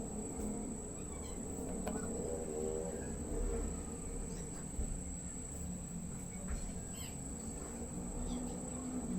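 Quiet background with a steady high-pitched tone throughout and a few faint clicks from small bicycle parts being handled.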